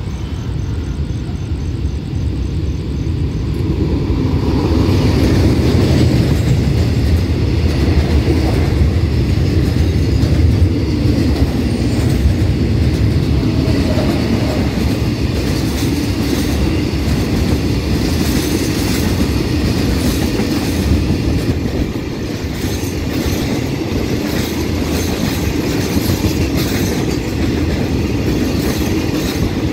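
Diesel-hauled freight train of tank wagons passing close by. It swells loud about four seconds in as it arrives, then rumbles past steadily, with a clickety-clack of wheels over the rail joints through the second half.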